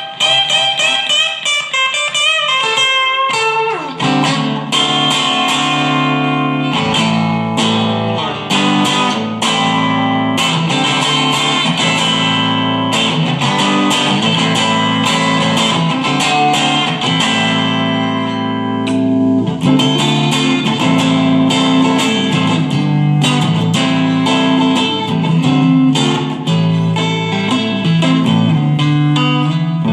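Overdriven electric guitar, a mahogany Chinese copy of a Fender Stratocaster, played through an amp with the gain turned up and picked up by a phone's microphone. A high lead line with string bends comes first, then, about four seconds in, lower riffs of picked chords.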